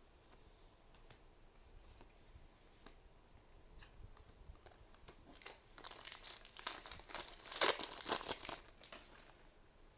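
A few soft clicks of cards being handled, then about three seconds of loud crinkling and tearing from a foil booster pack wrapper being torn open and crumpled.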